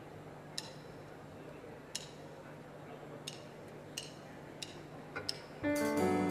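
Quiet hall with a steady low hum, broken by about seven sharp clicks that come slower and then faster, like a count-in. About five and a half seconds in, a large live ensemble enters together on a full held chord.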